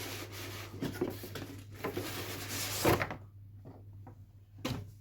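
Cardboard packaging rubbing and scraping as a graphics card box is opened, with small clicks; the scraping stops about three seconds in, followed by a quieter stretch and a knock near the end.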